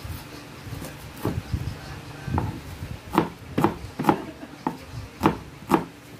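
Kitchen knife chopping red onion on a cutting board: a few scattered knocks, then a steady run of sharp chops about two a second.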